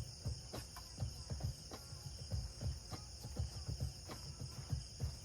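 Insects chirring steadily in a high even band, with frequent light knocks and clicks close by.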